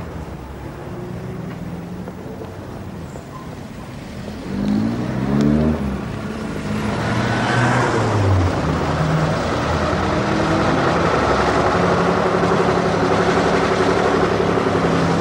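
Road traffic passing on a street: a car's engine rising in pitch about five seconds in, then from about seven seconds the louder, steady engine and road noise of a red double-decker bus driving close by.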